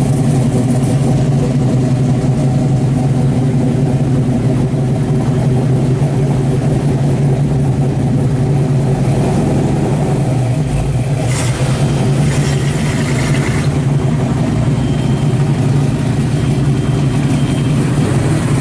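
Exhausts of mid-1960s Chevrolet Impalas idling steadily at an even pitch, with no revving. One car's idle gives way to another's about ten seconds in.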